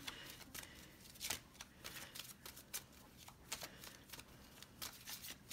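A deck of oracle cards being shuffled and handled by hand: faint, irregular card clicks and slides.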